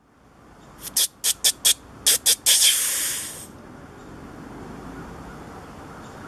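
A white-tailed deer snort-wheeze: about six short, sharp hissing puffs of breath, then one long drawn-out hiss of about a second. It is the aggressive challenge call of a rutting buck.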